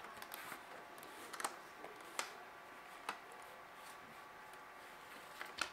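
Cardboard gaming-mouse box being handled and opened: a few scattered light taps and clicks of the cardboard flap and plastic tray, with a sharper knock near the end.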